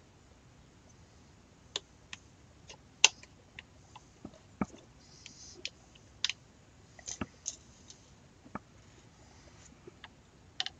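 Plastic and metal internal parts of a Tippmann Cronus paintball marker clicking and tapping as they are handled and seated in the receiver half by hand: a dozen or so irregular sharp clicks, the loudest about three seconds in.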